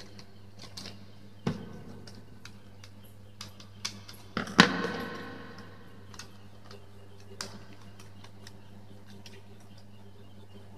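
Scattered small clicks and knocks of a plastic wall socket and its wires being handled, and a screwdriver working its terminal screws. A sharper knock about halfway through rings briefly, over a steady low hum.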